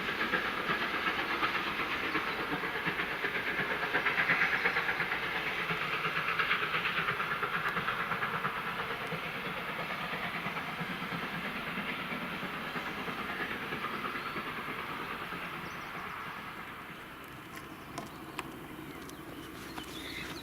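Steam-hauled train of the DR 18 201 running on the rails, its wheels clattering with a hiss of steam. It grows fainter through the second half as it moves away.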